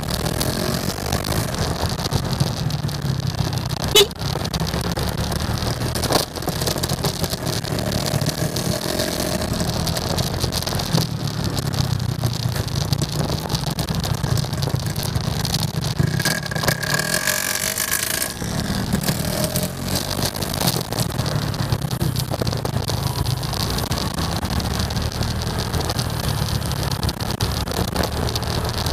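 Motorcycle engine running steadily on a ride through city traffic, with an even hiss of wind on the microphone and other vehicles around. A sharp click comes about four seconds in, and a short burst of noise with a brief high tone a little past halfway.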